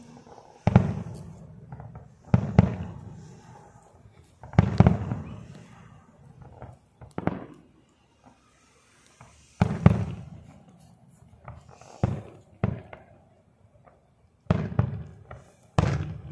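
Aerial firework shells bursting at a distance: about nine sharp bangs, a second or two apart, each trailing off in a rumbling echo.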